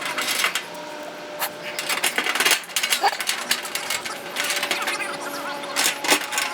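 Irregular sharp clinks and clicks of metal parts being handled and knocked together while a raised garden bed is assembled.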